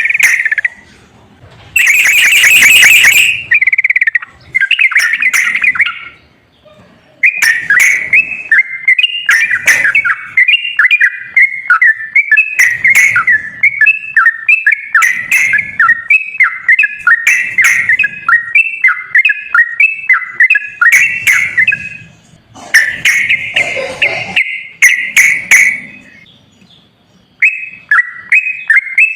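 Yellow-vented bulbul (trucukan) song: runs of quick, bubbly chattering notes, broken by a couple of short pauses.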